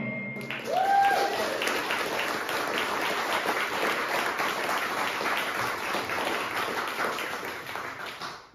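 Audience applauding, with a short whoop about a second in; the clapping dies away near the end.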